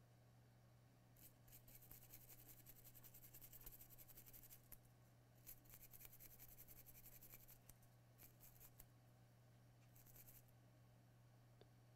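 Faint scratching of a stiff brush scrubbed across a wet circuit board, in several bursts of strokes, over a low steady hum.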